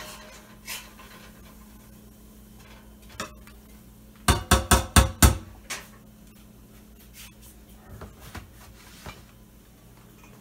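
Cookware and utensils being handled in a kitchen, with light clinks and clicks. About four seconds in there is a quick run of about six loud knocks within a second.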